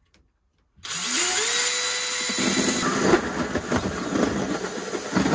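Cordless drill with a hole saw spinning up with a rising whine about a second in, then holding speed and biting into the trailer wall with a rough, chattering cutting noise.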